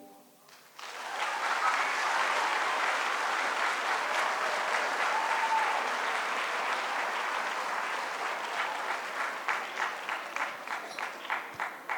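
Audience applauding, starting about a second in and holding steady, then thinning to scattered single claps near the end and dying away.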